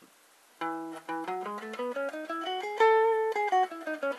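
Stratocaster-style electric guitar on a clean tone, played one note at a time with a pick using downstrokes only: a major scale in E that starts about half a second in, climbs note by note, holds the top note briefly and steps back down. It is played about as fast as down picking alone allows.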